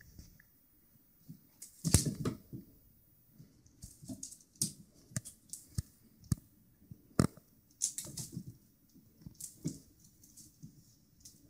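Irregular taps, thumps and scrabbling of a kitten pouncing at a feather wand toy on a hardwood floor, with a louder knock about two seconds in and another about seven seconds in.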